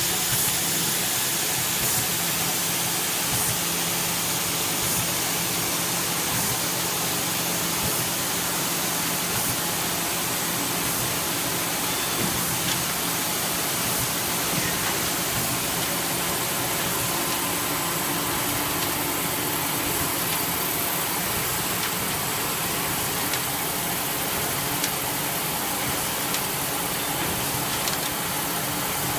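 Ibis Smart-binder SB3 binding machine running: a steady mechanical hum and hiss with a faint click about every one and a half seconds.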